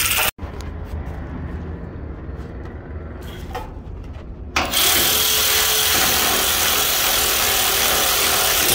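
A power tool starts about halfway through and runs steadily and loudly for about four seconds over a low, steady rumble.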